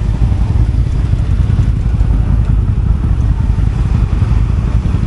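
Quad bike (ATV) engine running steadily, a dense low rumble with no change in pace.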